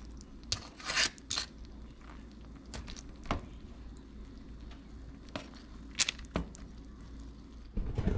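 Aluminium foil lining a metal sheet pan crinkling, with scattered short clicks and scrapes as the pan of chicken drumsticks is handled. A low steady hum runs underneath, and a few heavier knocks come near the end.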